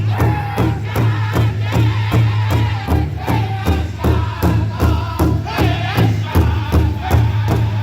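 Powwow drum group singing together around a large drum: a steady quick drumbeat, about four strokes a second, under high, wavering chanted voices.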